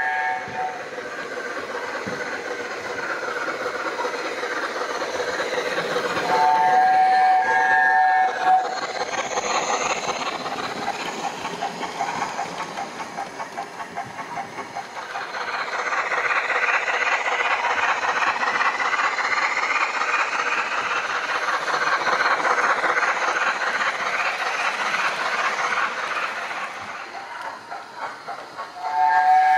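Sound decoder in an OO gauge model of the LNER A4 locomotive Bittern playing steam locomotive sounds through its small speaker: a rapid beat of exhaust chuffs with hiss, growing louder about halfway through. The chime whistle sounds briefly at the start, again about six seconds in for about two seconds, and once more at the very end.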